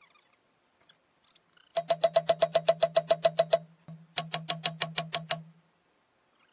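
Rapid, evenly spaced mechanical clicking, about nine clicks a second, over a steady low motor hum. It comes in two runs, the first about two seconds long and the second about one second after a short break.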